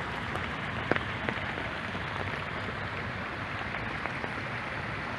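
Small man-made babbling brook: water running and splashing steadily over stones, with a couple of brief sharper ticks about a second in.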